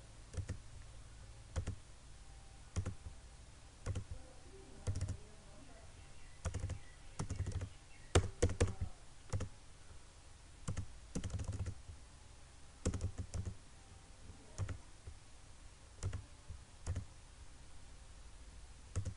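Computer mouse clicking: about twenty sharp single clicks at uneven spacing, bunched closer together around the middle, over a faint low hum.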